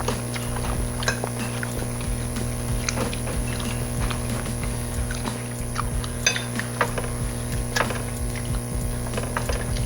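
Eating sounds: forks and spoons clicking and scraping on plates, with wet chewing, as scattered short clicks over a steady low hum.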